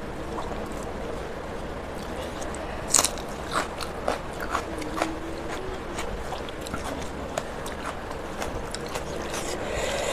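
Close-up eating sounds: fingers mixing and squeezing rice with dal on a steel plate, with chewing and lip smacks. Short wet clicks come throughout, the loudest about three seconds in.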